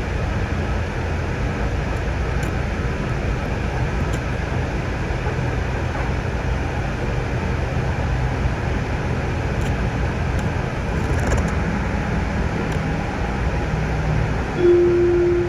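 Sound Transit Link light rail train running between stations: a steady rumble with a low motor hum underneath. Near the end a single steady tone sounds for about a second.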